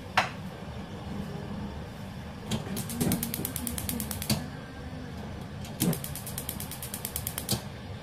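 A cloth rubbed across a glass cooktop and counter, giving two stretches of rapid creaking clicks, each about a second and a half long.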